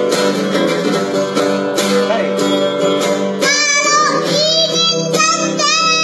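Acoustic guitar strummed in a steady rhythm, joined about halfway through by a young boy singing an Indonesian song in a high voice.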